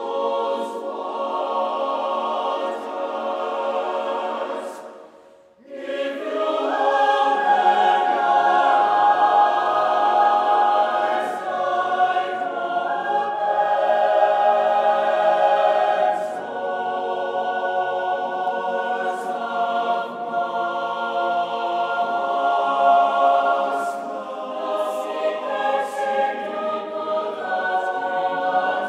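Choral music: layered voices holding long notes. It fades almost away about five seconds in, then comes back fuller and louder.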